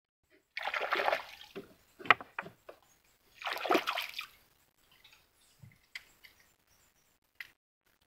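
Water splashing and sloshing at the side of a small wooden boat in two swells, each about a second long, with a few sharp knocks between them.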